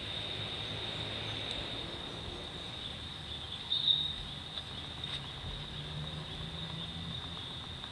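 Insects droning steadily at one high pitch, with a faint low hum underneath; the drone swells briefly a little under four seconds in.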